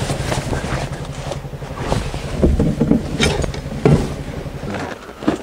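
An engine idling with a steady low hum that cuts off shortly before the end, with a few knocks and clatter over it.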